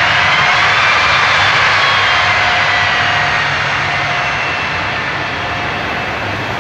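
Airbus Beluga (A300-600ST) running on its two GE CF6-80C2 turbofans as it rolls along the runway: a loud, steady jet roar with a high whine whose tones drift slowly down in pitch while the sound gradually gets quieter.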